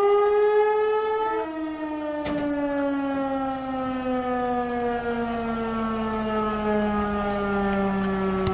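Outdoor civil-defense warning siren sounding its first-Tuesday-of-the-month test. Its single wailing tone rises to a peak about a second and a half in, then slides slowly down as the siren winds down.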